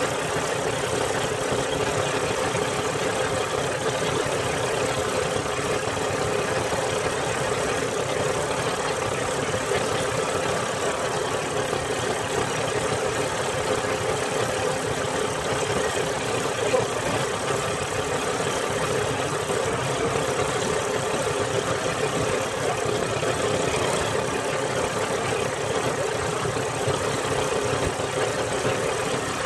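Motorized outrigger boat's engine running steadily while under way at sea.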